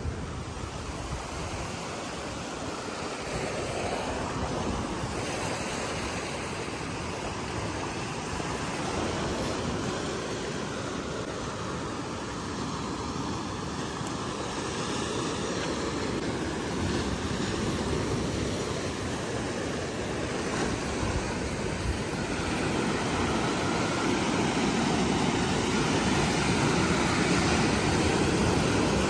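Sea surf breaking and washing over a rocky shoreline: a steady rush of water that swells and eases, growing louder toward the end.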